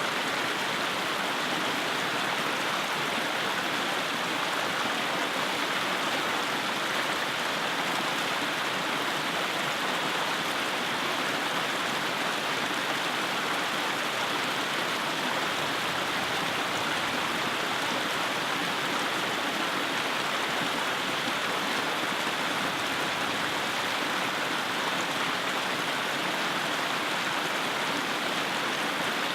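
Mountain creek water rushing between rocks, a steady, even rush without breaks.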